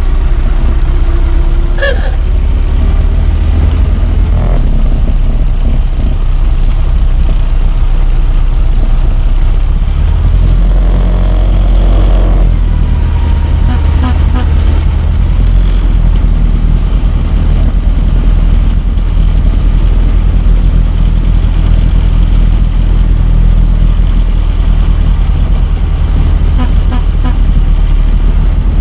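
Ford Model T's four-cylinder flathead engine running steadily as the car drives along, with a few light clicks about halfway through and near the end.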